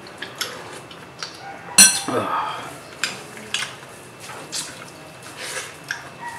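Eating sounds: a spoon clinking on dishware and hands picking through shrimp, crab and rice on a plastic table cover, heard as scattered sharp clicks and rustles, with one louder clatter about two seconds in.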